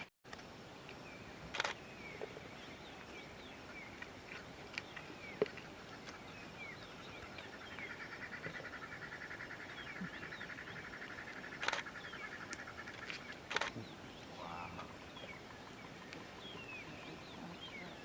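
Outdoor bush ambience with small birds chirping throughout and a buzzing trill lasting several seconds in the middle. Three sharp camera-shutter clicks come a couple of seconds in and twice near the middle.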